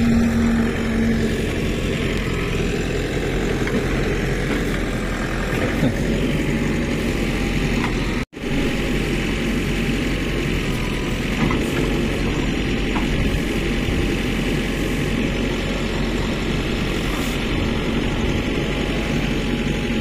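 Diesel engine of a Mahindra EarthMaster SX backhoe loader running steadily as it works a trench. The sound cuts out for an instant about eight seconds in.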